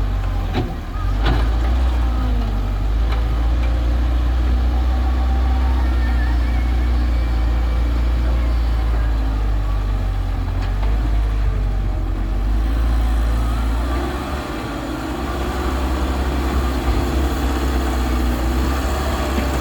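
Diesel engines of an excavator and a tractor running steadily at a construction dig, with a few sharp knocks about a second in. The deep engine hum changes and drops slightly about fourteen seconds in.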